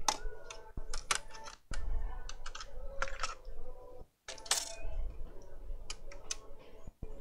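Irregular clicks and light metallic clinks of an opened laptop being taken apart by hand: a small screwdriver, screws and the case and motherboard parts knocking and being handled.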